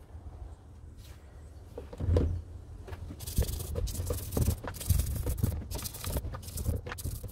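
A small brush scrubbing an aluminium brake caliper in a tub of soapy water, in quick repeated hissing strokes, after a single thump about two seconds in.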